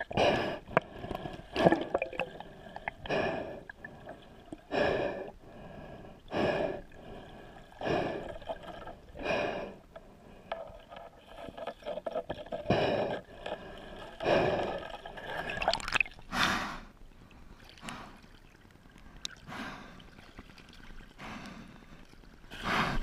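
A snorkeler breathing hard and fast through a snorkel, about one breath every second and a half, with water gurgling and dripping.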